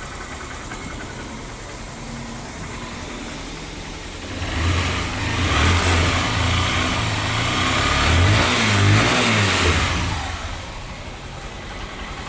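Honda CG 125 Fan's fuel-injected single-cylinder four-stroke engine idling, then revved up and down for several seconds from about four seconds in before settling back to idle. The engine has a freshly rebuilt top end (new cylinder and piston, reworked valves), and it now sounds different, with the cylinder-head noise gone.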